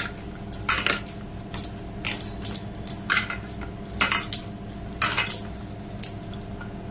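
Soft wheat-flour dough being kneaded by hand in a steel plate: a short clinking scrape about once a second as the hand presses the dough down, with the bangles on the wrist knocking against the plate. A steady low hum runs underneath.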